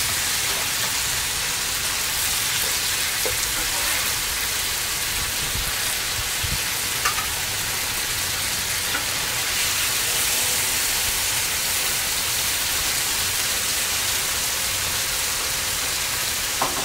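Chicken and stir-fry vegetables with noodles sizzling steadily on a hot Blackstone flat-top griddle. A few faint clicks are heard over the hiss.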